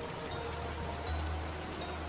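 Steady hiss of rain on a roof mixed with a lofi hip hop track; low held bass notes under the rain change pitch about a second in.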